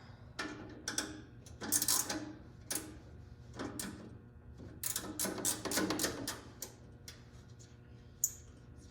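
Metal tools and parts clinking and rattling in irregular bursts as bolts are worked loose on a garden tractor's hood latch assembly.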